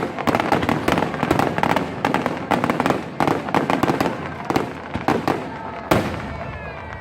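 Aerial fireworks bursting in rapid succession, a dense run of bangs, with one louder bang about six seconds in.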